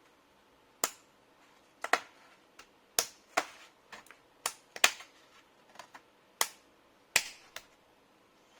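Plastic bottom cover of an HP Omen 15 laptop being pried loose with a thin metal tool: a dozen or so sharp, irregular clicks and snaps as the case's clips give way.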